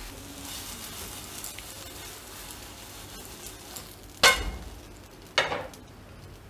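Oil sizzling faintly under an uttapam frying in a nonstick pan, then two sharp clanks about a second apart a little past the middle.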